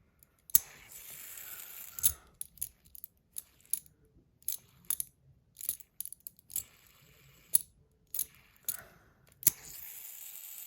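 Metal fidget spinners being handled and flicked: sharp metal clicks and clinks throughout, and twice a steady high whir as a spinner spins freely on its bearing, once early and again near the end.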